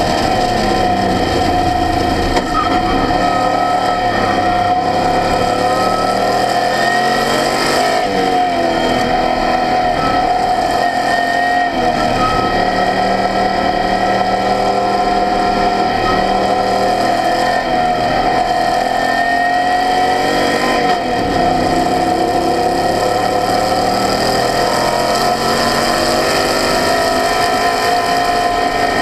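Open-wheel race car's engine running hard on track, heard from on board, its note rising and falling repeatedly as the car accelerates and slows through the corners, over a steady whine.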